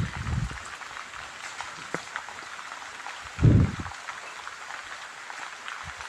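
Steady hiss of heavy rain, with two short low thuds, one just after the start and one about three and a half seconds in.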